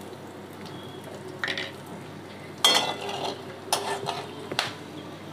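Whole spices sizzling gently in hot mustard oil in a metal kadai during the tempering (phoron) stage, with a spatula scraping and clinking against the pan about four times as they are stirred.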